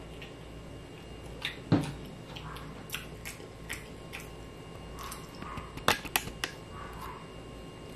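A person chewing food close to the microphone, with scattered wet mouth clicks and smacks. The sharpest click comes just under two seconds in, and a quick run of clicks about six seconds in.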